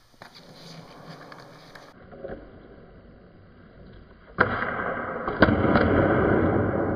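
After a quieter start with a few faint clicks, a sharp clack comes about four and a half seconds in. Then skateboard wheels roll loud and steady on a smooth concrete floor, with a couple of clicks from the board.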